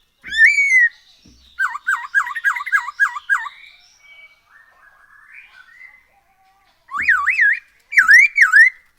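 Masked laughingthrush (poksay Hongkong) singing loud whistled phrases. A single arching note comes first, then a fast run of about seven up-and-down whistles, softer warbles, and two more swooping whistled phrases near the end.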